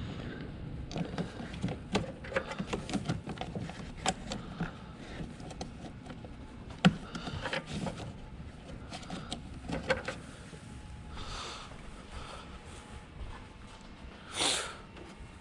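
Hand work on plastic covers and parts in a car's engine bay: scattered clicks, light knocks and scrapes as pieces are unclipped and pulled off, with one sharp click about seven seconds in and a brief rustle near the end.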